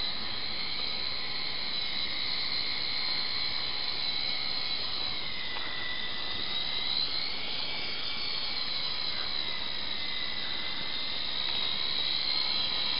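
Small remote-control toy helicopter in flight, its motor and rotor giving a steady high whine whose pitch slowly drifts up and down as the throttle changes. It grows a little louder near the end.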